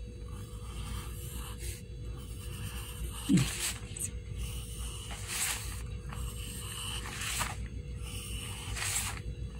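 Graphite pencil scratching on paper as it draws short curved strokes, one dry scratch every second or two, over a steady low hum.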